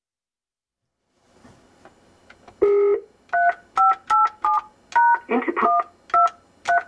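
Telephone keypad tones: after a second of silence and a short beep about two and a half seconds in, about nine quick two-tone keypad beeps as a number is keyed in.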